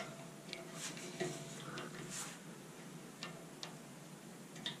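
Faint, irregular small clicks and taps of an open-end spanner and a plastic-bodied fuel tap handled against the moped's metal tank as the tap is worked onto its thread, about eight clicks scattered over a few seconds.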